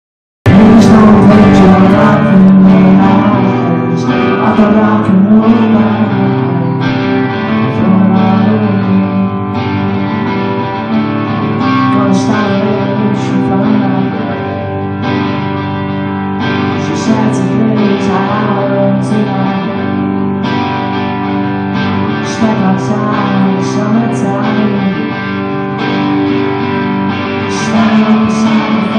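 Live band playing a rock song, electric guitar over drums.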